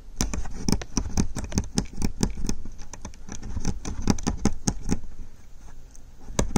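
Aari embroidery needle repeatedly piercing the fabric as sequins are stitched down one at a time: a quick, irregular run of sharp clicks, several a second.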